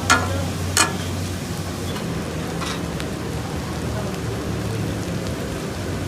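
Food sizzling steadily on a hot tawa, with three sharp metal clanks in the first three seconds, typical of a spatula striking the griddle.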